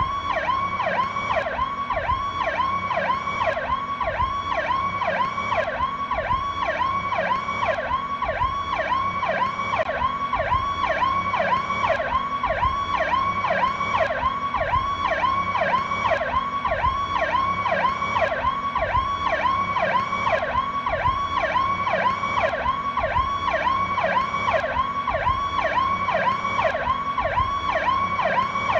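Federal Signal PowerCall electronic police siren sounding continuously in a fast, evenly repeating up-and-down sweep, several cycles a second, with no change in rate or level.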